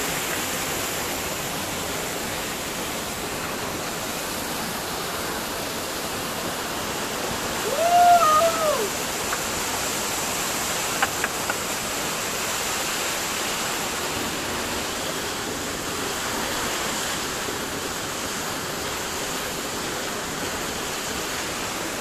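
Waterfall pouring steadily into a pool, a constant rushing of falling water. About eight seconds in, a person gives one short shout that rises and falls, the loudest moment.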